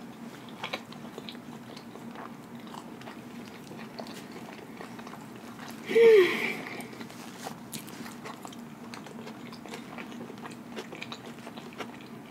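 A person chewing a big mouthful of a quadruple-patty burger with her mouth closed: many small, wet mouth clicks. About halfway through comes one short sound from the throat, falling in pitch, the loudest moment.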